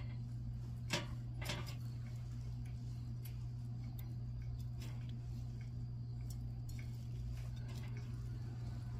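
Metal tongs clicking and clinking against a wire grill rack and a plate as grilled meat skewers and beans are lifted off: a few light clicks, the sharpest about a second in, over a steady low hum.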